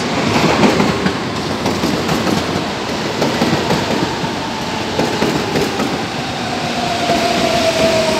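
São Paulo Metro train running along the platform and slowing, its wheels clattering over the track. A whine falls steadily in pitch as it brakes.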